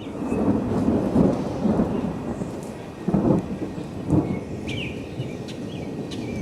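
Thunder rumbling and rolling in several swells, loudest about a second in and again around three and four seconds.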